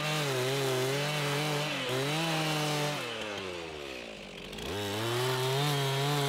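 Two-stroke chainsaw cutting into a conifer trunk at full throttle, sawing a girdling ring through the bark and outer wood to cut off the tree's water flow. About three seconds in, the engine revs fall away nearly to idle, then it is throttled back up and cuts on.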